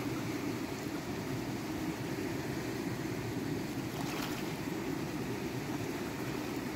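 Steady rushing of a shallow stream. A short, faint scrape about four seconds in as a hand picks through the wet stones and twigs.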